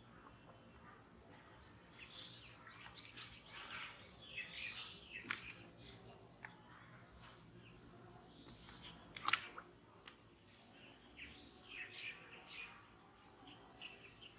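Small birds chirping faintly in quick runs of short, high notes, with one sharp click about nine seconds in.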